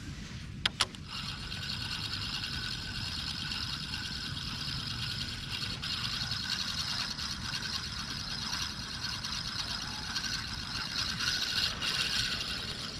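Daiwa Certate spinning reel being cranked steadily, a continuous gear whir for about eleven seconds as the frog bait is reeled in, after two quick clicks.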